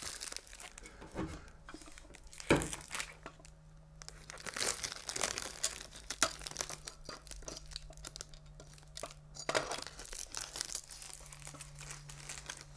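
Clear plastic protective wrap crinkling and tearing as it is peeled off a monitor stand's base and column, with one sharper crackle about two and a half seconds in.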